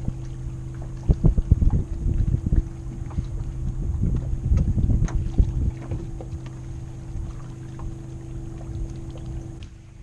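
Uneven low knocks and rumbling of wind and handling on the microphone, loudest in the first half, while a largemouth bass is held up and released over the side of a small boat. Under it runs a steady low hum that cuts off abruptly near the end.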